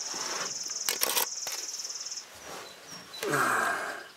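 A high, buzzy insect trill that stops about two seconds in, with a few sharp knocks about a second in and a short, louder muffled sound near the end.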